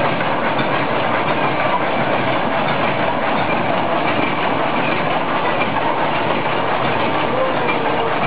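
Coil-fed fully automatic welded wire mesh machine running, welding the mesh: a loud, continuous fast clatter.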